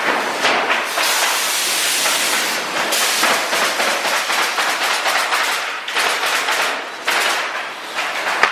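Woodpecker nailer running on compressed air: loud hissing air exhaust in long bursts, with rapid mechanical clacking through them.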